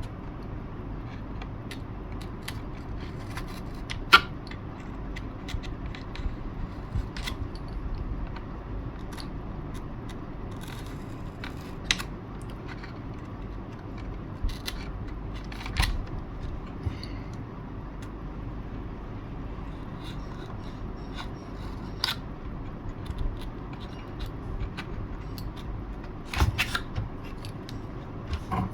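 Scattered clicks, taps and light scraping of hand tools and small parts being handled at a workbench, over a steady background hum. The sharpest click comes about four seconds in, with a cluster of taps near the end.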